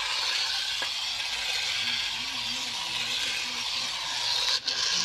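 Battery-powered remote-control toy excavator's small electric motors and plastic gearbox whirring steadily as it drives along on its tracks.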